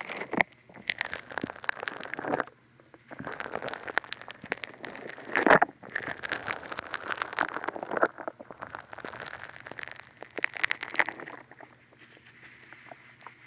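Funny Foam being squished against the ears of a binaural dummy-head microphone, crackling and fizzing in close-up bursts with short pauses between them. The crackle turns faint near the end.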